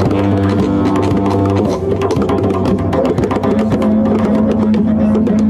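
Several didgeridoos droning together in a steady low tone, their overtones shifting, while a djembe is played by hand with quick strokes over the drone.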